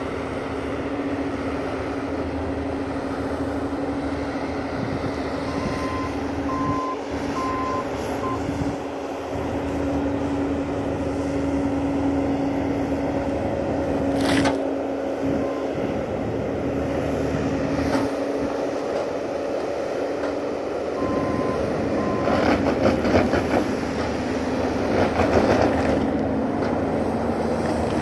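Bobcat compact track loader's diesel engine running steadily under load with a constant low hydraulic drone, and a few short high tones now and then. From about 22 seconds in, branches and brush crackle and snap as the machine and its grapple work the logs.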